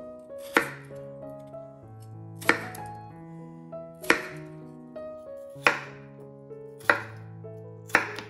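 Kitchen knife cutting through raw peeled potatoes and knocking on a wooden cutting board, six sharp chops spaced about one to two seconds apart. Soft background music with sustained notes plays underneath.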